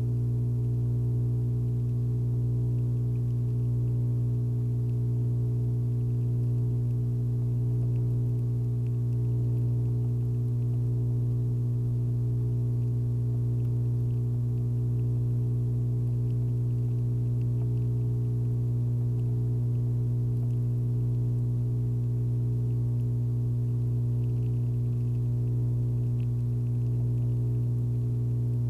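A steady low hum, one strong deep tone with a stack of overtones above it, unchanging throughout.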